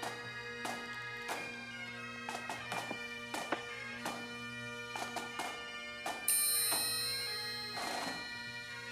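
Bagpipes playing, a steady drone under a slow melody, with scattered drum strokes. About six seconds in comes a sudden bright ring, the loudest sound here, which dies away over about two seconds.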